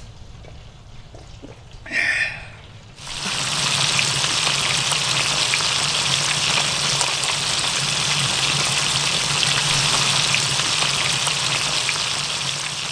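Whole fish frying in hot oil in a large black pan, a loud steady sizzle with constant crackling that starts suddenly about three seconds in. A brief sound comes just before it, about two seconds in.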